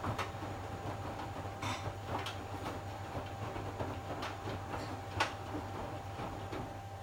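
Panasonic front-loading washing machine running: a steady low hum with a faint steady whine under irregular clicks and knocks, the sharpest one about five seconds in.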